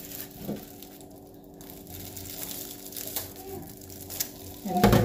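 Plastic food packaging crinkling and rustling as it is handled, with a few light clicks over a faint steady hum. A sharp knock comes right at the end.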